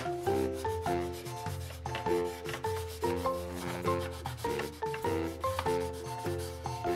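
Quick back-and-forth rubbing strokes of colouring on a coloring-book page, over background music with a melody of short stepping notes.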